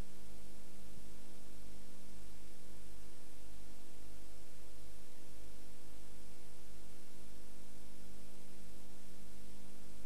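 Steady electrical hum with an even hiss over it, unchanging throughout, with no music or voice on top.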